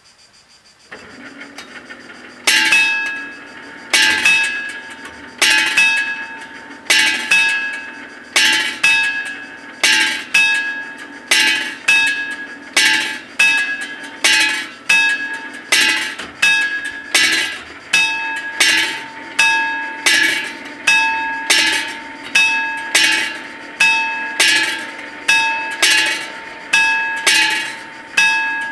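Level crossing warning bells striking about once every second and a half, each stroke ringing out with a clear metallic tone, sounding as the crossing closes for an approaching train.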